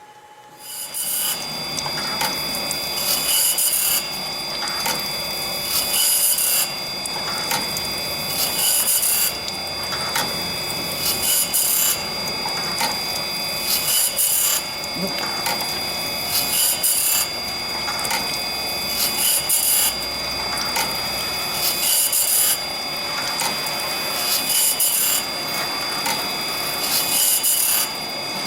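A saw-blade workshop machine starts up about a second in and runs in a steady cycle: a constant whine under a loud rasping stroke repeating about every two and a half to three seconds.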